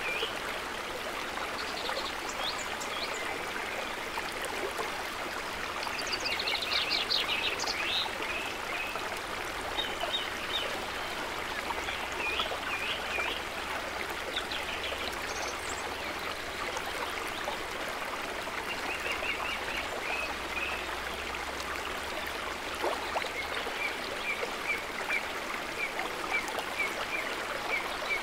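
Woodland stream running over rocks in a steady rush, with small birds chirping now and then over it, including a quick run of repeated chirps near the end.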